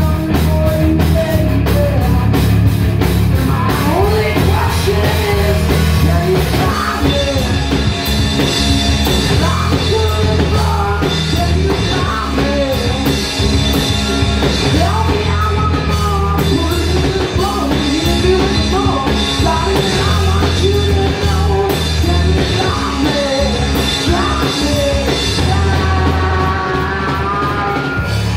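Live rock band playing at full volume: distorted electric guitar, bass guitar and drum kit, with a male voice singing over them.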